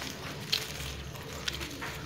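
A few light, sharp clicks as thin wooden pinning sticks are picked from a bundle, over a low steady background hum.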